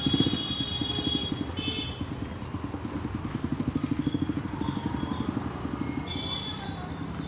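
An engine idling with a steady, fast putter, like a motorcycle ticking over, with a few short high chirps over it.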